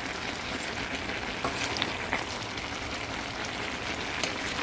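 Pot of bora (yardlong beans) and chicken cooking down in coconut milk and seasoning, a steady sizzle with a few faint clicks.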